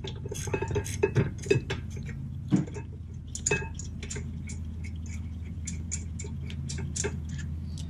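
Ratchet wrench clicking in quick runs of short, sharp ticks as a loosened caliper bracket bolt is backed out by back-and-forth strokes.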